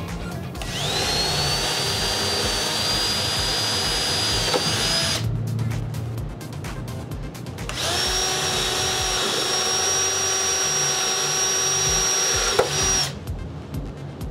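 Cordless drill running twice under load, each run about four to five seconds long with a short pause between; the first starts with a rising whine that then holds steady.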